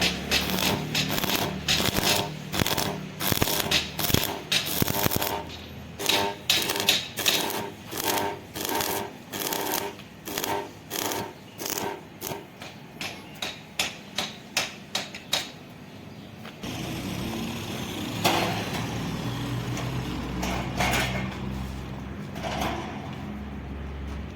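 A hammer striking iron repeatedly, each blow ringing, at roughly two blows a second. About two-thirds of the way through the hammering stops and a steady machine hum takes over, with a few surges of hiss.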